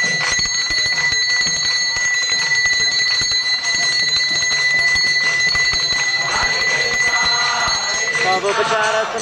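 A ritual hand bell rung rapidly and without pause: a high ringing tone that stops about eight seconds in. Voices chanting come in near the end.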